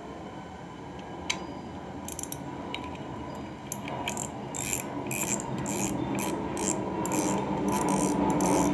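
Bullzen Mini R800 ultralight spinning reel being worked by hand: a whirring gear noise that grows steadily louder, with sharp clicks starting about two seconds in and coming thicker toward the end.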